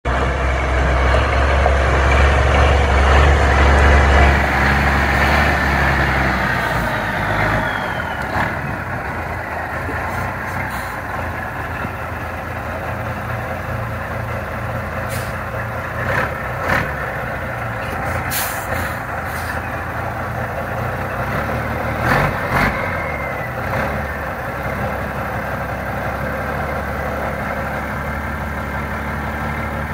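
Mack R686ST dump truck's diesel engine idling: heavier and louder for the first six seconds or so, then settling to a steady idle. A few short, sharp sounds come over it about halfway through.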